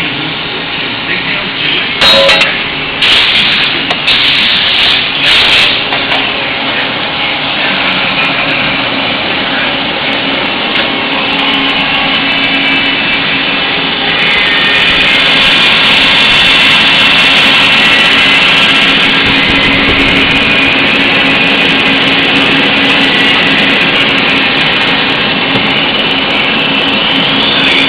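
Hardinge GT-27 CNC turning center running, with a steady machine whine of several tones. Loud bursts of cutting or tool noise come over the first few seconds, and a higher hiss joins about halfway through.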